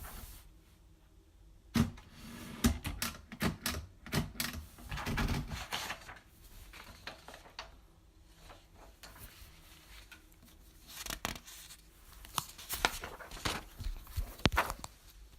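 Typewriter being typed on: irregular sharp key strikes in two spells, a busy run from about two seconds in to six seconds and another from about eleven seconds until near the end, with quieter stretches between.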